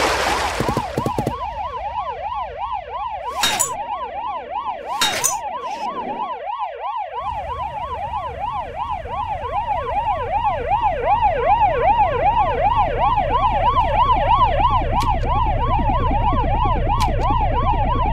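Police siren in a fast up-and-down yelp, about three sweeps a second, with a low vehicle rumble that grows louder after about seven seconds. Two brief sharp noises cut in about three and a half and five seconds in.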